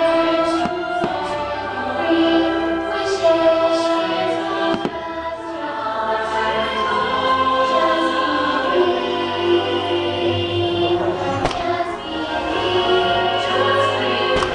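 Fireworks show soundtrack of orchestra and choir singing sustained chords, with a few sharp firework bangs cutting through it.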